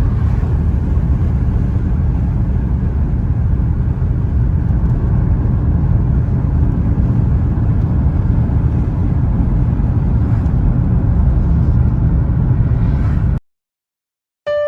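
Steady low road and engine rumble inside a moving car's cabin. It cuts off suddenly near the end, and piano music starts just after.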